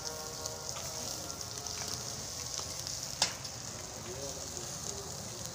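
Skewered quail, mutton and fish sizzling over a charcoal barbecue grill, a steady hiss of fat and juices on the hot coals. A single sharp click cuts through a little past three seconds in.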